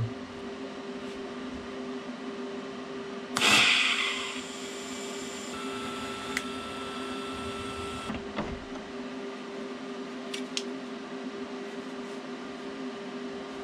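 TIG welding arc striking about three and a half seconds in with a loud, harsh burst, then running as a steady hiss with a thin high whine for about four and a half seconds before cutting off suddenly. A steady hum runs underneath throughout.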